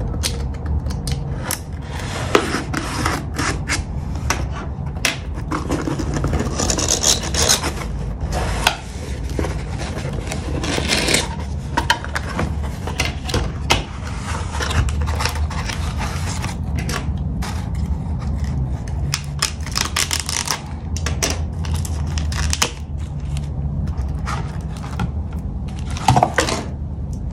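Cardboard shipping box being opened by hand: a pen point scraping along the packing tape, then cardboard flaps pulled open and the boxed phone lifted out. Irregular scrapes, rubs and small knocks throughout, with a few louder bursts of tearing and rustling cardboard.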